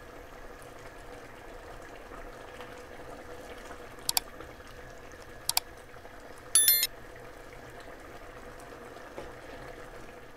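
Chicken and lentil curry simmering and bubbling in a pan under a faint steady hum. About four seconds in come two sharp clicks and then a short ringing chime, the like-and-subscribe sound effect.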